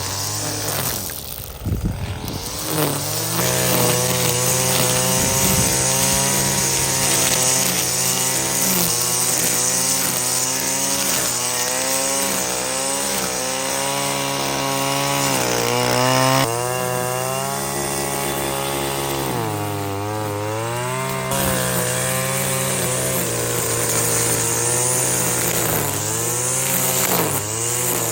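Small petrol engine of garden machinery running hard, its pitch wavering and dipping several times as it bogs under load and picks up again, typical of cutting grass and undergrowth.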